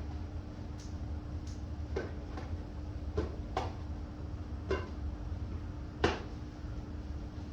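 Irregular light knocks and clicks of wooden 2x4 pieces and an acrylic sheet being handled and fitted together, about eight in all, the sharpest about six seconds in, over a steady low hum.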